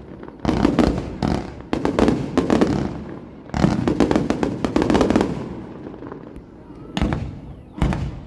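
Fireworks going off in rapid crackling volleys of bangs for the first five seconds or so, then two single loud bangs near the end.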